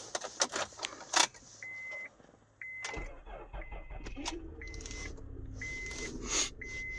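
2010 Honda Odyssey's 3.5-litre V6 starting about three seconds in with a newly programmed transponder key and settling into a steady idle, after a few key clicks in the ignition. A dashboard warning chime beeps about once a second throughout.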